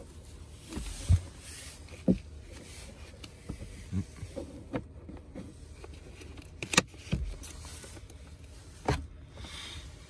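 Plastic clicks and knocks of a Hyundai Palisade's glovebox being refitted by hand, its side stopper and hook pushed back into place: about half a dozen separate sharp taps, the loudest about a second in and near seven seconds, over a faint low steady hum.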